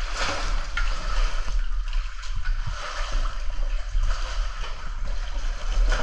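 Water splashing and sloshing as a caver moves through sump water, starting suddenly. A heavy low rumble runs underneath.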